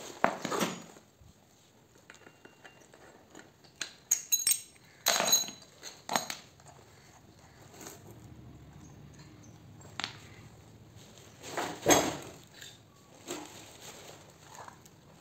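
Metal chainsaw parts and hand tools clinking and knocking as the saw's clutch side is taken apart by hand: a scatter of separate sharp clinks with quiet between, the loudest near the end.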